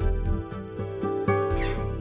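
Instrumental background music: a steady run of plucked notes over a low bass line, with a brief high gliding sound about one and a half seconds in.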